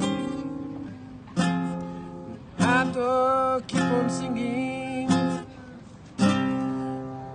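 Acoustic guitar, strummed chords: about six chords, each struck sharply and left to ring and fade before the next.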